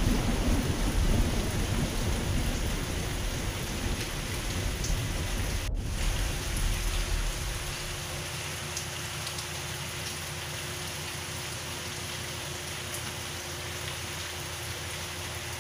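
Steady tropical rain falling, with a low rumble of thunder that fades away over the first half.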